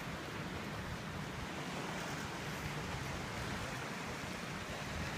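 Steady wash of ocean surf against the rocks below a sea cliff, mixed with wind.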